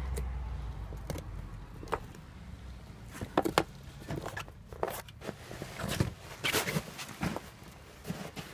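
A husky gnawing and tugging at a strip of tree bark: irregular crunching, crackling snaps with some rustling, loudest in a flurry about a third of the way in and again past the middle.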